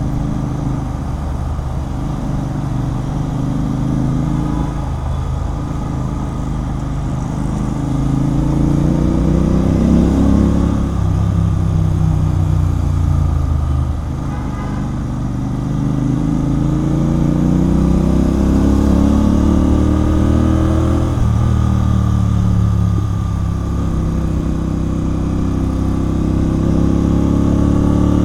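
Royal Enfield Continental GT 650's 648 cc parallel-twin engine running through a Red Rooster aftermarket exhaust while riding. The engine note climbs as it accelerates, then drops back on backing off or a gear change, several times over.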